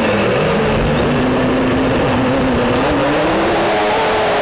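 Drone's electric motors and propellers whirring, picked up by the camera on the drone itself, with air rushing over it. The motor pitch wavers, then rises about three seconds in.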